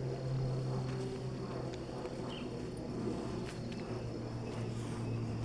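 Outdoor ambience: a steady high insect drone over a steady low hum, with faint footsteps.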